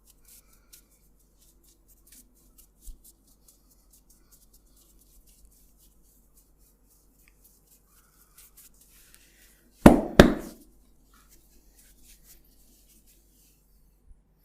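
Hands massaging the head: faint rustles and light ticks of fingers on hair and skin, then two loud sharp smacks about a third of a second apart, some ten seconds in.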